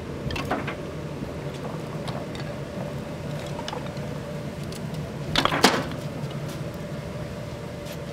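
Pieces of firewood knocking and clattering against each other and the wooden bin as they are picked out by hand, with scattered knocks and a louder burst of clatter about five and a half seconds in. A steady low hum lies underneath.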